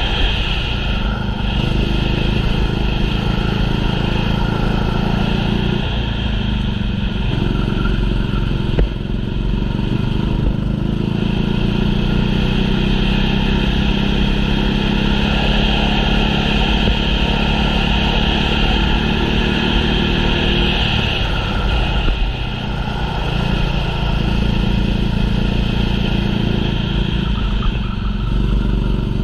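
Go-kart engine running hard through laps, its pitch dropping off briefly several times, about six seconds in, around ten seconds and around twenty-one seconds, as it lifts for corners, then climbing back to full revs.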